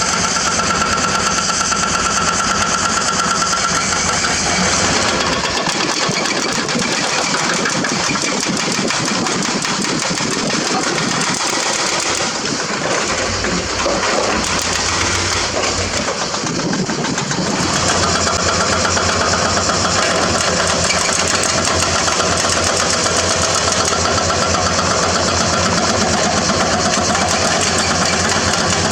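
Hydraulic excavator's diesel engine running steadily. Its deep note thins out from about five seconds in and comes back strongly at around eighteen seconds, as the machine's load changes.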